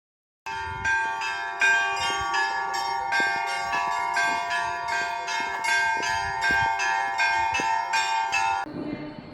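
Orthodox church bells ringing: small bells struck in a quick, repeated pattern over the lingering hum of larger bells. The ringing starts about half a second in and cuts off abruptly near the end.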